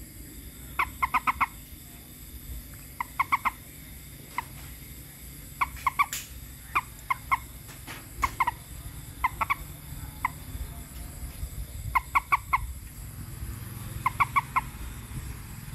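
A frog calling at night: bursts of three to five quick croaking pulses, repeated every second or two, some single notes between.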